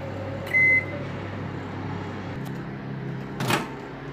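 Microwave convection oven: one keypad beep about half a second in as it is started, then its steady running hum, which cuts off a little past halfway. Near the end, a short loud noise as the oven door is opened.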